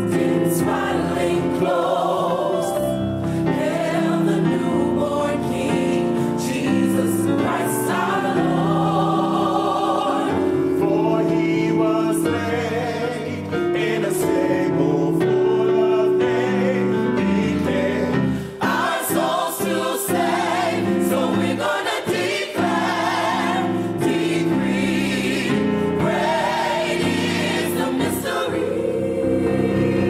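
Gospel choir singing with massed voices, a gospel Christmas song.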